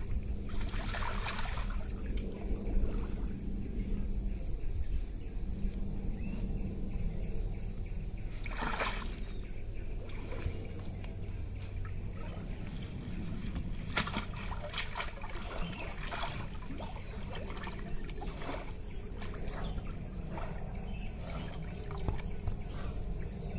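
Pool water sloshing and splashing as an Asiatic black bear moves about in it and handles blocks of ice, with a few sharper splashes.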